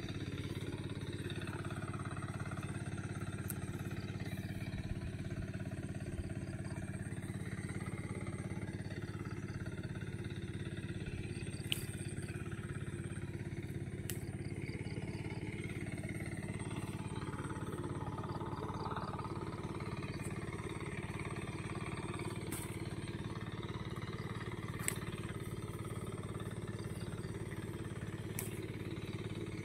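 A steady low mechanical drone, like a small engine running without a break, with a few faint sharp clicks over it.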